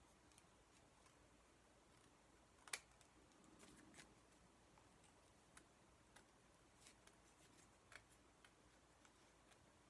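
Scissors snipping through paper in faint, irregular single cuts, with one sharper snip nearly three seconds in.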